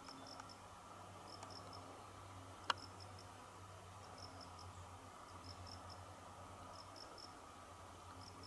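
Faint insect chirping: short groups of three or four high notes, repeating about once a second, over a low steady hum. A single sharp click comes a little under three seconds in.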